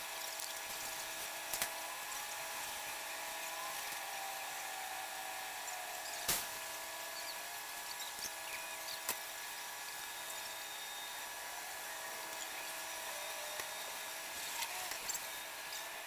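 Concrete mixer truck running: a steady mechanical whine of several held pitches, one of which slowly drops. A few sharp knocks cut across it, the loudest about six seconds in.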